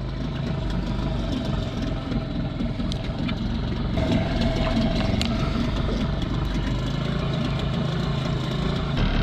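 Small outboard motor on an inflatable dinghy idling steadily, with an even low hum that holds throughout.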